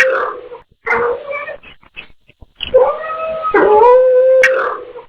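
Cats yowling in drawn-out, wavering meows: a call trailing off, a short call about a second in, then a long call from about three seconds in. The owner hears the yowls as the words 'go home'.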